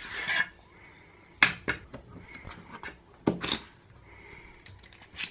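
Small sharp clicks and taps of a SIM card tray being ejected and pulled from a Xiaomi Mi Max 3 smartphone: a few separate clicks, the loudest about a second and a half in and again past three seconds.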